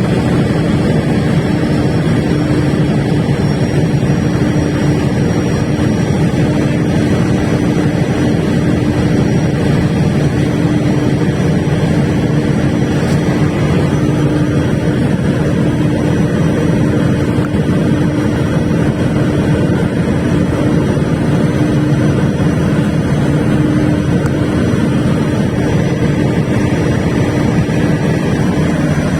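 Large Perkins diesel generator set running steadily at constant speed: a loud, even engine drone with a steady hum that does not change.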